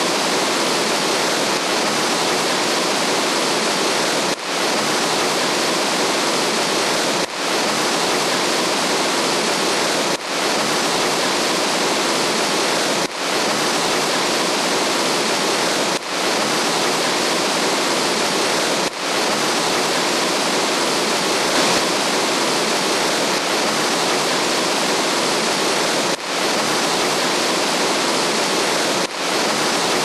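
Waterfall rushing steadily, a dense hiss of falling water with a brief dip in level about every three seconds.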